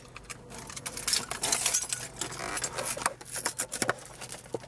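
Small cardboard blind box being torn open by hand: crackling and rustling of the cardboard flap in quick irregular spells, loudest about a second in and again around three seconds in.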